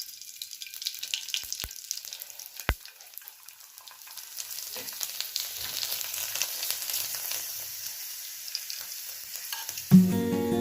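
Food frying in hot oil in a pan, a steady crackling sizzle that grows louder about four seconds in. A few sharp clicks sound in the first three seconds.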